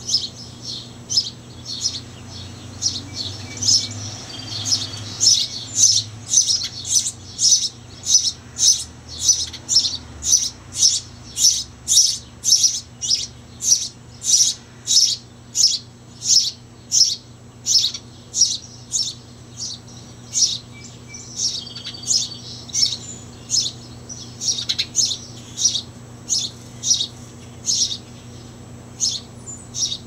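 Male house sparrow chirping a long, steady series of single cheeps, about two a second, loudest in the middle stretch.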